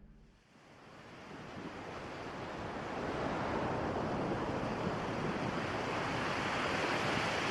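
A steady rushing noise fades in from near silence over the first two seconds, then holds.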